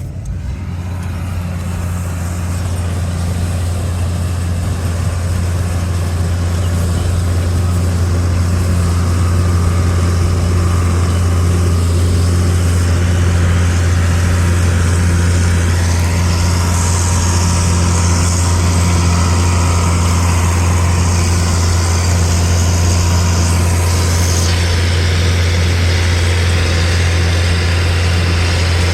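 Tractor engine running steadily, powering a hay baler: a constant low drone with a haze of machinery noise above it, growing a little louder over the first few seconds.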